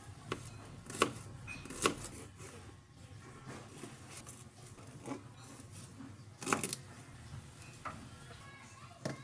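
Irregular sharp clicks and knocks of kitchenware being handled, about seven in nine seconds, the loudest a quick double knock about two-thirds of the way in, over faint soft piano music.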